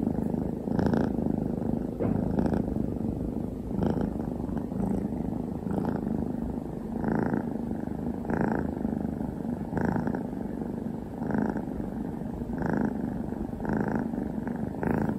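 Orange tabby kitten purring continuously close up, a low rumble that swells with each breath about every one and a half seconds, like a motorbike engine.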